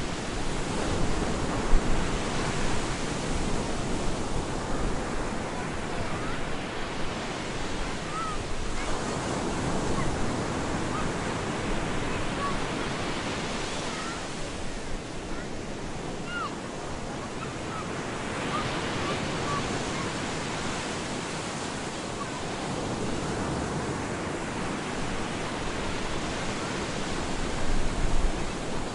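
Stormy surf: ocean waves breaking and washing up a beach as a steady rush, swelling and easing every several seconds.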